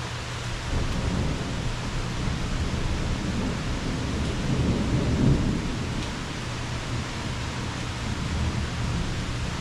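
Rolling thunder rumbling low under steady rain. It builds about a second in, is loudest about five seconds in, then eases, with a smaller swell near the end.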